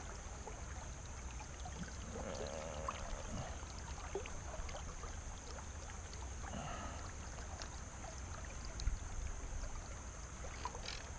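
Flowing creek water, a steady rushing hiss with scattered small clicks and splashes, under a low rumble.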